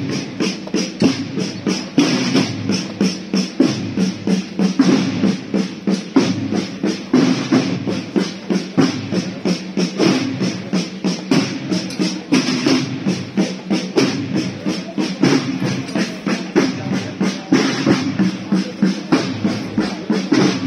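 Processional band music: drums beating a quick, steady march rhythm under sustained held tones.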